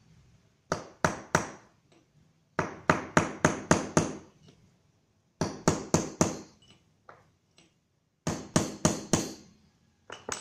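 Claw hammer striking metal in five quick bursts of two to six sharp blows each, with short pauses between. This is the tapping of parts home while fitting needle bearings into a motorcycle's rear-suspension linkage.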